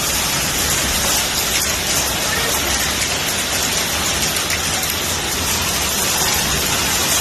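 Hail and rain falling heavily, a dense steady hiss of many small impacts.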